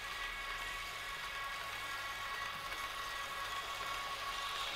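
Märklin H0 model electric locomotive and freight cars running along the track: a steady whine with a rolling hum, growing a little louder near the end as the train approaches.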